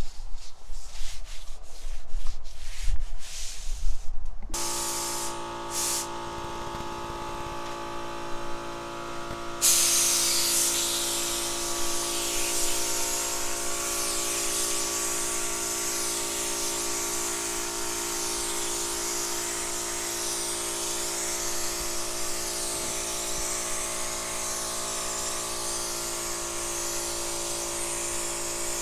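A tack cloth rubbed over a painted car panel for the first few seconds, then a steady hum, and from about ten seconds in the continuous hiss of an air-fed paint spray gun spraying the top coat.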